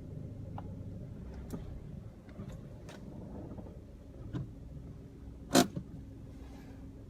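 Low rumble of an idling car, heard from inside. A few light clicks sound over it, and one sharp, louder click comes about five and a half seconds in.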